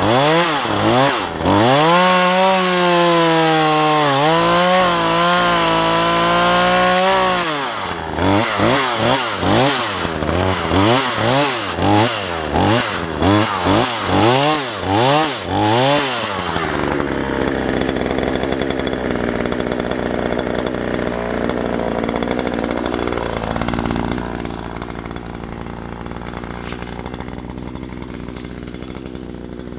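Two-stroke chainsaw revving, held high for several seconds, then blipped up and down about once a second. In the second half it runs lower and steadier.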